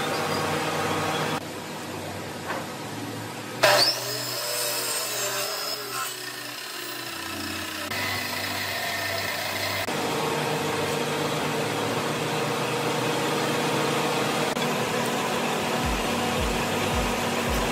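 Workshop woodworking machinery, such as a jointer-planer, running with a steady hum that changes abruptly several times. A sharp knock of wood comes about four seconds in, and a run of low, rapid thumps begins near the end.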